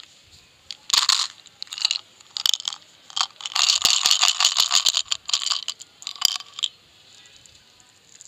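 Plastic flip-top candy container being handled and clicked open, then small round candies rattling and clattering as they are shaken out of it into a palm. The clatter is densest about three and a half to five seconds in, with a few more shakes and clicks after, and stops well before the end.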